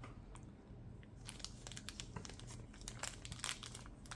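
Small product packaging being opened by hand: faint crinkling and crackling, quiet for about the first second and then a run of many short crackles.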